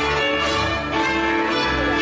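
Hungarian folk dance music played on fiddle with strummed guitar accompaniment, running steadily.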